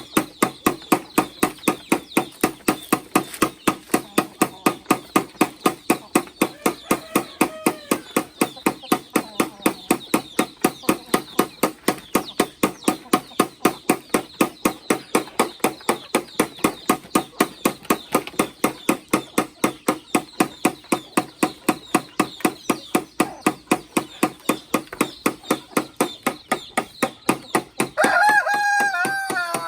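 Steady, rapid chopping strokes, about three a second, with a rooster crowing near the end.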